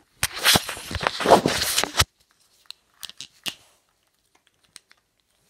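Close handling noise: scraping and rustling as the recording device is moved over a plastic case and fabric, for about two seconds, followed by a few scattered clicks.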